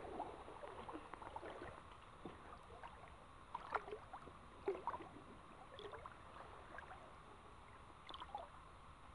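Shallow stream water running and gurgling quietly, with a few brief louder sounds around the middle.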